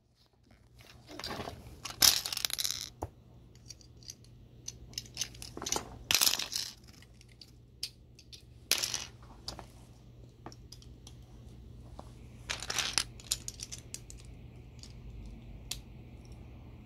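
Small plastic Lego pieces clicking and clattering as they are handled. Several short rustling bursts of about a second each come in between.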